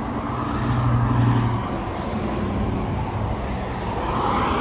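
A motor vehicle going by on a nearby road: a low engine hum that is strongest about a second in, then fades, and a rush of road noise that rises near the end.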